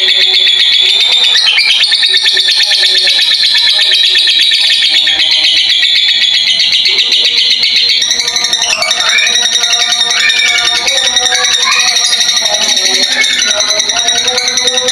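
Blue masked lovebird chattering in one long, unbroken, fast high-pitched rattling trill. The trill changes its pattern about halfway through, adding some lower notes.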